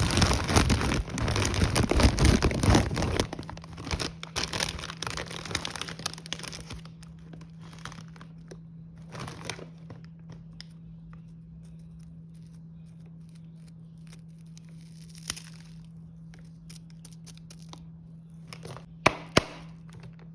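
Snack packaging crinkling and rustling, dense for the first three seconds, then thinning to scattered handling rustles, with two sharp clicks near the end.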